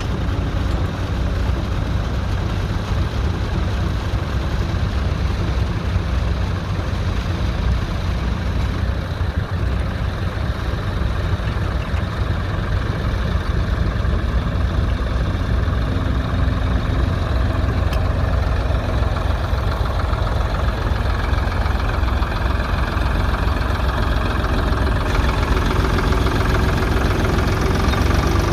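Ford 3000 tractor's three-cylinder engine running steadily, a deep, even engine note.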